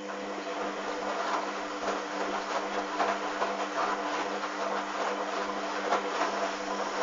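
Hoover Dynamic washing machine running: a steady motor hum with many irregular clicks and swishes from the turning drum and its load.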